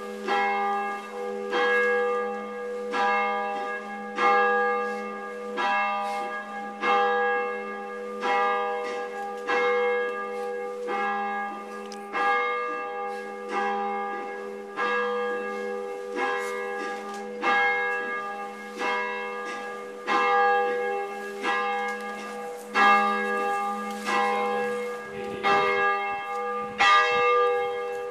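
Church bell swung by a hand-pulled rope, tolling about once a second, each stroke ringing on into the next with a steady low hum beneath. It is a funeral toll, one stroke for each year of the dead man's life.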